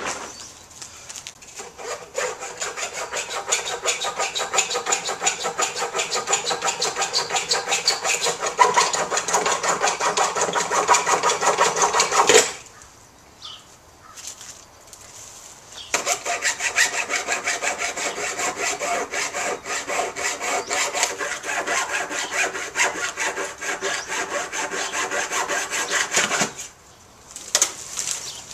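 Hand saw cutting through a wooden fence in rapid, rhythmic back-and-forth strokes. Two long bouts of sawing, with a pause of about three seconds between them.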